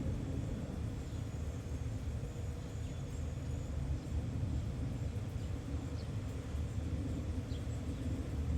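Steady low rumble of distant traffic, with a faint steady tone above it and two faint short chirps in the second half.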